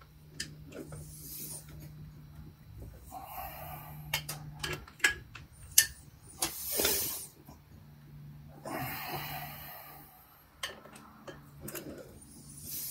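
Metal clicks and clinks of a socket and torque wrench working round the bolts of a Ford AOD transmission pump, with a few loud breaths through the nose between them and a faint steady low hum underneath.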